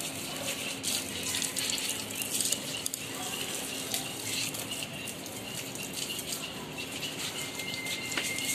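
Water running from a garden hose onto potted plants: a steady splashing hiss with small crackles.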